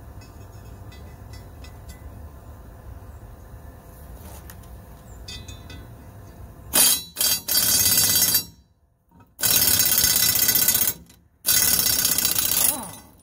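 Impact wrench hammering in four bursts over the second half, the first one short, turning an exhaust stud that is fighting it in a cast-iron exhaust manifold. Before the wrench starts there is only a low steady background.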